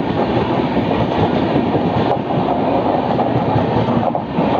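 Two Indian Railways express trains passing each other on adjacent tracks, heard from an open coach door: a loud, steady rumble of coach wheels on the rails, with a couple of faint clacks from rail joints.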